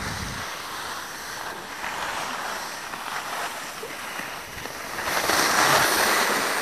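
Skis sliding and scraping over packed snow, with wind rushing on the microphone, getting louder about five seconds in.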